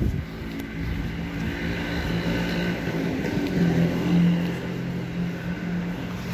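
A motor vehicle's engine humming steadily on the street, loudest about four seconds in, over general city street noise.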